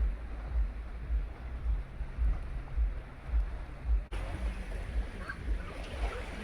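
Wind buffeting the microphone in uneven low gusts over the steady wash of the sea. About four seconds in, the sound changes abruptly and the hiss becomes brighter.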